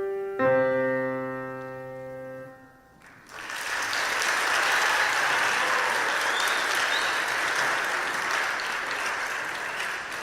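A final piano chord is struck and left to ring out, then after a short pause an audience applauds steadily.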